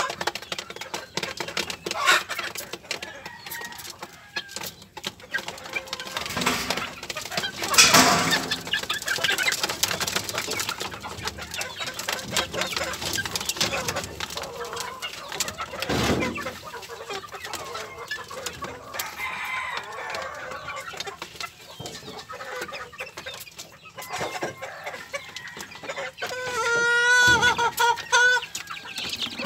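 Young chickens clucking while they peck feed from a plastic trough feeder, with scattered pecking clicks. One long wavering call near the end.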